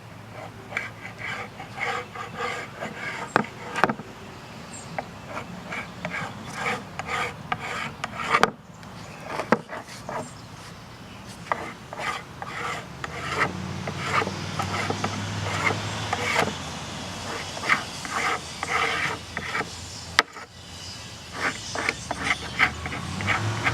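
A hand tool scraping wood in repeated, irregular strokes.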